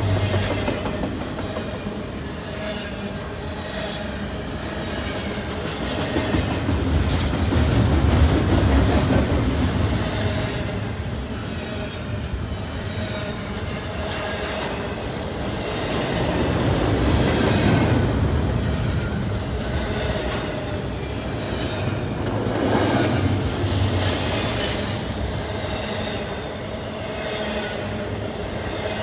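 Double-stack intermodal freight train passing close by: steel wheels rumbling and clacking over the rail joints. The noise swells and eases several times as the well cars go past.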